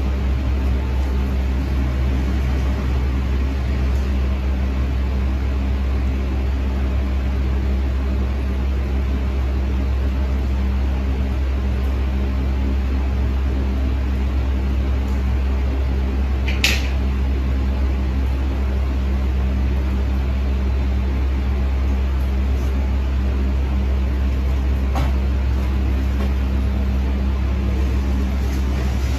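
Steady low machine hum, like a fan or small motor running continuously, with a single sharp click about two-thirds of the way through.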